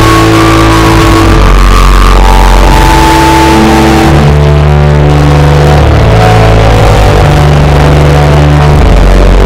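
Organ playing slow, held chords with deep bass notes, the chords changing every second or two.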